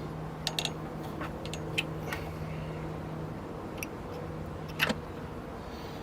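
A few light, sharp metallic clicks and taps, scattered and irregular, as a freshly cut metal key is handled and cleaned, over a steady low hum.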